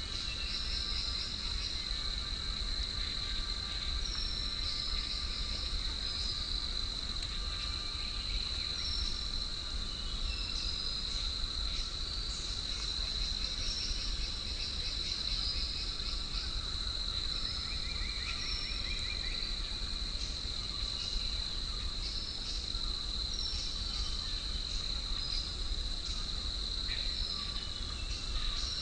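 Insects droning in one steady high tone, with short bird chirps scattered over it and a steady low wind rumble underneath.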